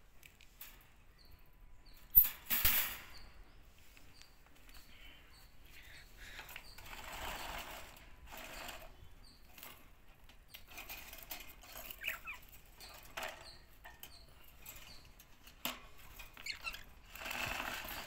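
Caged budgerigars fluttering their wings in short flurries, the loudest about two seconds in and another near the end, with a few soft chirps between.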